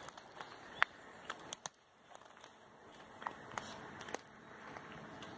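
Dry twigs and forest-floor litter crackling and snapping: an uneven scatter of quiet, sharp clicks.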